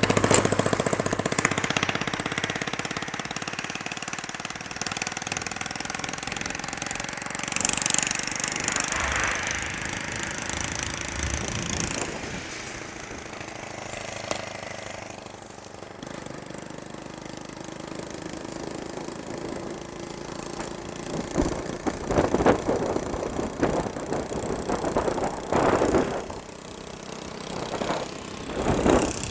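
A vehicle engine running steadily, with wind buffeting the microphone in loud bursts during the second half.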